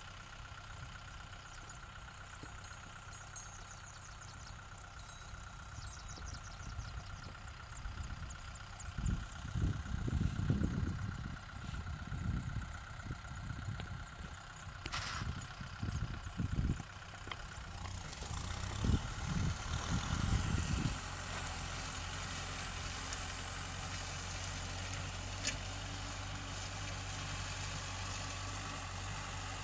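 Kubota tractor's diesel engine running steadily. Irregular low rumbling surges come through for about ten seconds in the middle, then the engine settles into an even, steady hum.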